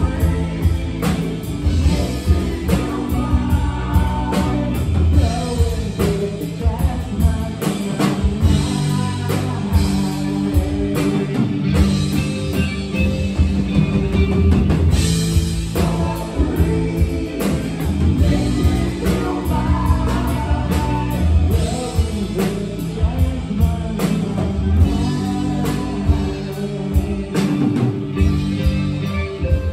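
Live rock band playing: electric guitar, electric bass and drum kit, with a steady beat of drum hits throughout.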